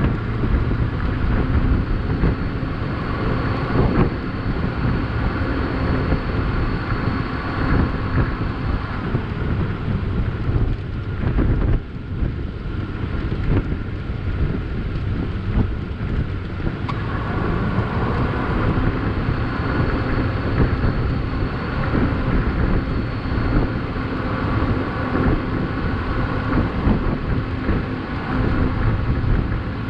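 Strong wind buffeting the microphone, a continuous gusty rumble, over a vehicle engine running steadily; the engine's hum drops back between about ten and seventeen seconds in, then returns.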